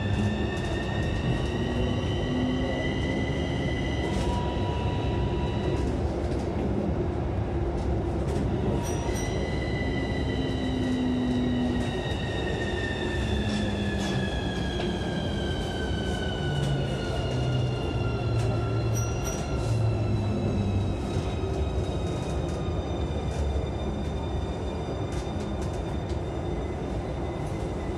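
Keikyu electric train pulling away and gathering speed: a high whine from its drive motors rises over the first few seconds, breaks off, then returns about ten seconds in and slides slowly lower, over a steady rumble of wheels on rails.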